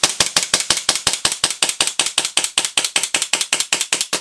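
Jag Precision Taran Tactical JW3 Combat Master gas blowback airsoft pistol fired in a rapid string, about eight shots a second, each shot a sharp crack with the slide cycling, then stopping suddenly.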